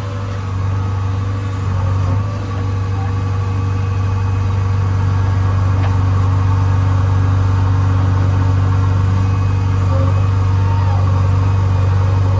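JCB 3DX backhoe loader's diesel engine running steadily under work, a deep even drone.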